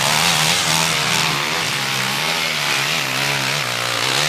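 Enduro motorcycle engine running hard as the bike climbs a steep dirt slope, its pitch wavering up and down as the throttle is worked.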